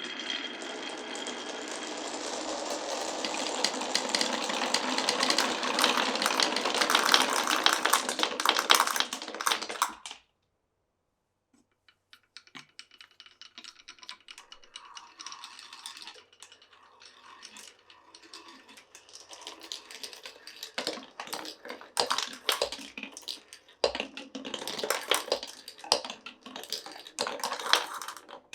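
Many marbles rolling and clattering together down marble run tracks, a dense continuous rattle that grows louder and stops abruptly about ten seconds in. After a short silence, marbles roll again more sparsely, with clicks and knocks that get busier toward the end.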